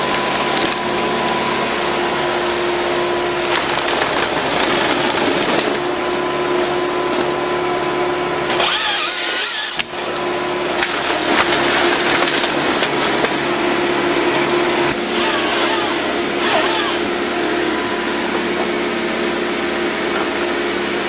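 Forestry harvester at work: its engine runs steadily under dense mechanical noise as the harvester head cuts and processes timber. A loud hiss stands out for about a second, around nine seconds in.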